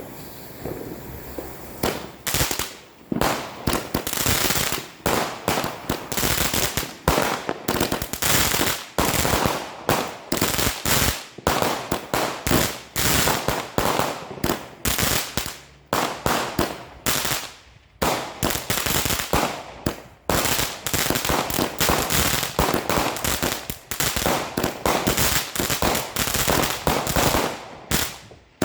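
Weco Dreamcatcher compound firework battery (Verbund) firing a rapid, unbroken series of shots and bangs, several a second, with a few brief lulls.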